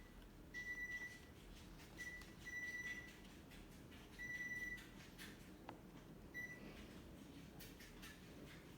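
Faint electronic beeps from a Panasonic ceiling fan's control unit: five beeps at one high pitch, some short and some longer, coming at irregular intervals.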